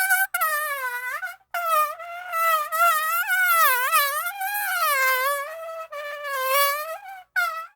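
Mosquito whine sound effect: a thin buzzing drone that wavers up and down in pitch and breaks off briefly a few times.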